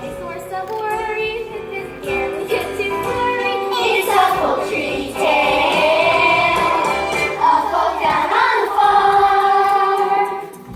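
A chorus of young voices singing a musical-theatre number with instrumental accompaniment. The voices swell and hold long notes through the second half.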